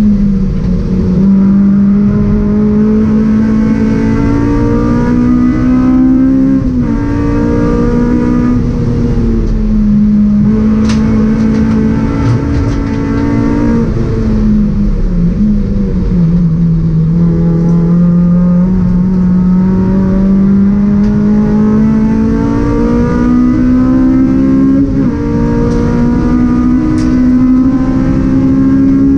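Inside the cabin of a 2004 Honda Civic Type R EP3 race car, its four-cylinder engine running hard at racing speed. The engine note climbs and falls several times through the lap, with short breaks at the gear changes, over road and tyre noise. Two brief sharp clicks are heard, one in the middle and one near the end.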